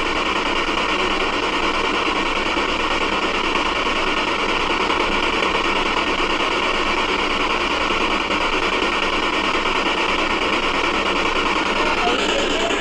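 Steady, loud hiss of static with no voices in it. A short falling sweep comes right at the end.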